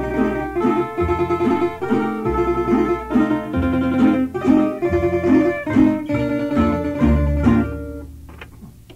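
Instrumental music on plucked string instruments over a bass line, the melody in quickly repeated picked notes. The tune ends about eight seconds in, followed by a couple of faint plucks.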